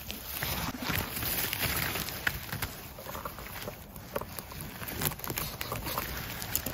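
Rustling and crackling of moss, grass and twigs as gloved hands part the ground cover and a knife cuts mushrooms from it, with irregular close clicks of handling.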